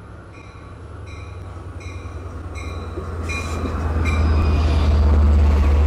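EMD DM30AC diesel locomotive pulling in and passing close by, its low engine rumble growing steadily louder to a peak about five seconds in. A bell rings about every three-quarters of a second over it.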